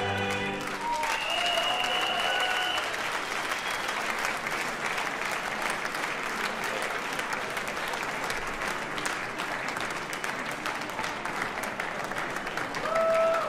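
The final held chord of the cantors' male voices and piano dies away within the first second, and the concert audience breaks into steady applause. A few voices call out over the clapping shortly after it starts and again near the end.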